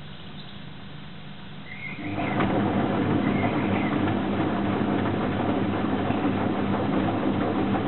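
Hoover Electra 540 Dual Spin front-loading washing machine running mid-cycle, a low steady hum that about two seconds in jumps to a much louder, steady rushing noise with a low hum under it.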